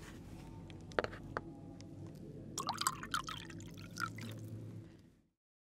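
A few light clicks, then liquid poured into a cup, splashing with a rising pitch as it fills, over a low steady hum. It all fades out about five seconds in.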